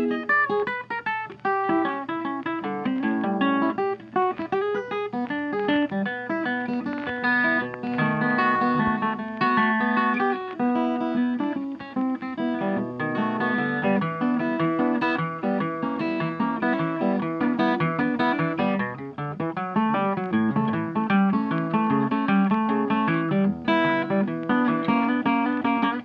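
Background music: plucked and strummed guitar playing a busy run of notes.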